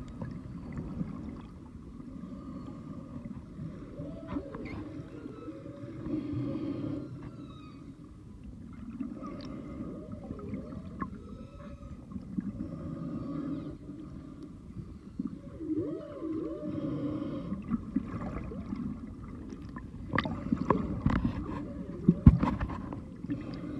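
Humpback whale song heard underwater: low moans and looping up-and-down whoops that come back every few seconds. Several sharp knocks and clicks near the end, one of them the loudest thing here.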